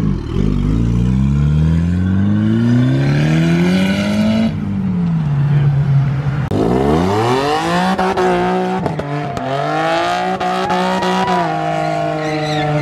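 A Mitsubishi Lancer Evolution accelerating hard, its engine note climbing steadily, then dropping at an upshift about four seconds in. Halfway through, a second car comes in louder, revving hard with a steeply rising note and a few sharp pops, holds a high note, and shifts again near the end.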